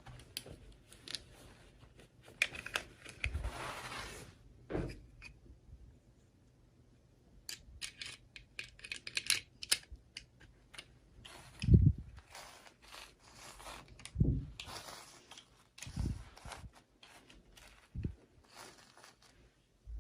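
Hands handling toy packaging: irregular crinkling, tearing and clicking of plastic and cardboard, with several soft thumps as pieces are set down, the loudest a little past halfway.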